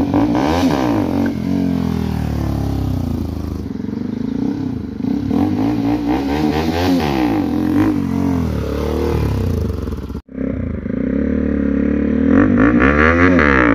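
A Bajaj Pulsar RS200's single-cylinder engine, fitted with a loud aftermarket exhaust, revving up and down again and again while it is ridden. The sound breaks off briefly about ten seconds in.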